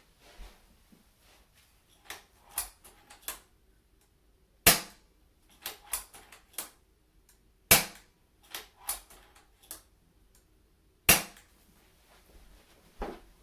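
Snowpeak Artemis P35 .177 PCP bullpup air rifle, fitted with a carbon-shroud moderator, firing three sharp suppressed shots about three seconds apart, with lighter clicks between the shots.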